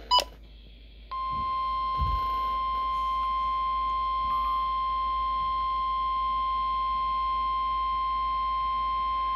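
NOAA Weather Radio warning alarm tone: a single steady 1050 Hz tone that starts about a second in and holds, heard over faint radio hiss. It signals the start of an emergency alert broadcast, here a severe thunderstorm warning. A brief sharp click comes just before the tone.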